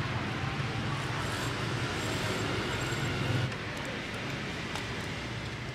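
Road traffic noise from a nearby street: a steady wash of passing cars and motorbikes, with a low engine drone that eases off about three and a half seconds in. A few faint clicks come near the end.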